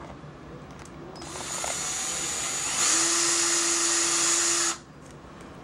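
Electric drill boring a hole: it starts up a little after a second in, runs louder and steadier with a constant whine from about three seconds in, and stops sharply near the end.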